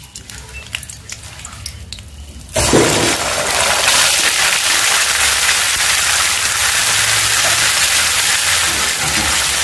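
Wet ginger, green chilli and cumin paste dropped into hot tempering oil in a kadai: a faint crackle of the spices and leaves, then about two and a half seconds in a loud sizzle starts suddenly and carries on steadily.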